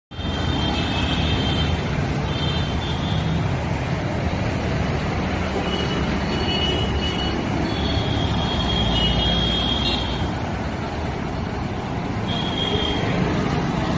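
Steady city road traffic of motorbikes, cars, trucks and auto-rickshaws passing, a constant low rumble. Short high-pitched tones come and go several times over it.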